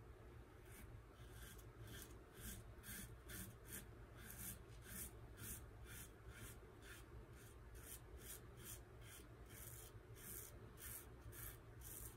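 Gem Micromatic single-edge safety razor with a GEM Professional blade scraping through lathered three-day stubble in short, quick strokes, about three a second, faint.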